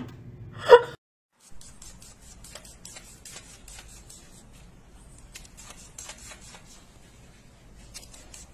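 A short, loud pitched cry just under a second in, then a run of faint, irregular light clicks and taps as a cat paws and scrambles at a computer monitor and desk.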